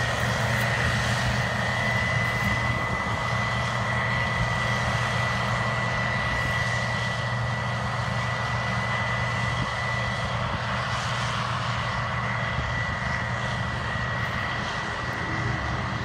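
Combine harvester harvesting corn, its engine and threshing machinery giving a steady drone with a constant high whine, slowly fading as it moves away down the rows.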